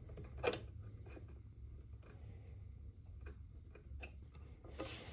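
Faint clicks and small knocks of a heavy speaker cable being handled and fitted to an amplifier's speaker terminals, over a steady low hum.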